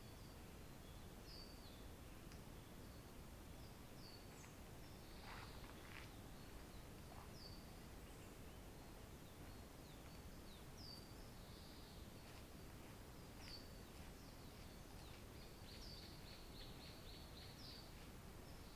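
Faint songbird calls over a low steady hiss: short, high notes slide downward and repeat about every second and a half. A quick run of notes comes near the end.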